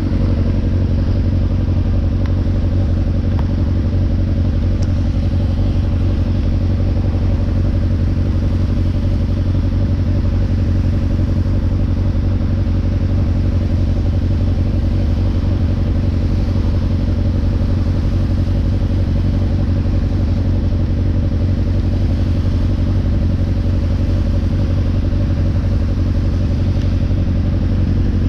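Motorcycle engine running at steady revs, an even low drone with no revving up or down.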